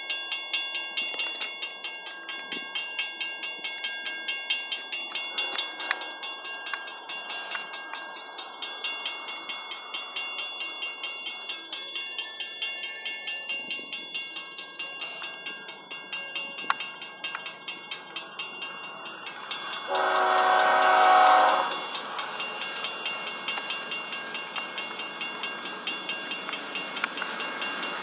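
A grade-crossing warning bell ringing steadily at about three strokes a second. About twenty seconds in, the approaching freight train's lead locomotive, a GE ES44C4, sounds its air horn in one chord blast of about a second and a half.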